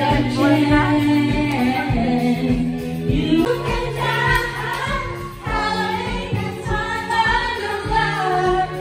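Karaoke: a woman sings into a microphone over a backing track with a steady bass line, with other voices joining in.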